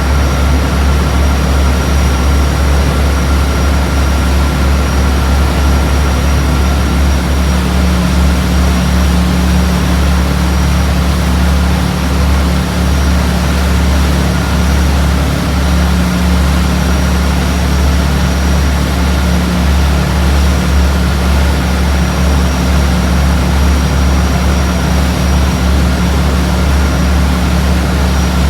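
Passenger ferry's engine running with a steady low drone, with fainter steady higher-pitched tones over a rushing noise.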